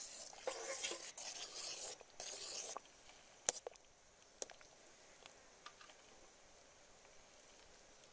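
Metal ladle stirring pumpkin chunks in simmering liquid in a steel pot, scraping and sloshing for about two and a half seconds. Then a single sharp knock, followed by a few light taps.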